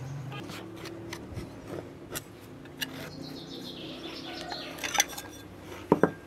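Taps and knocks of a ceramic bowl pressed down through rolled dough onto a wooden board, cutting out rounds, with the two loudest knocks near the end. Birds chirp in the background.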